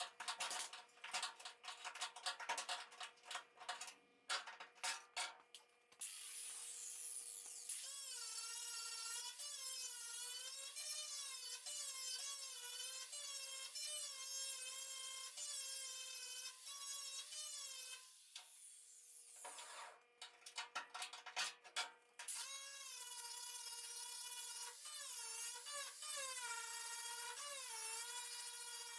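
Power tool running with a high whine whose pitch repeatedly dips and recovers, as if loaded and eased off against the work. Rapid irregular clattering and clicking comes first, and returns briefly about twenty seconds in.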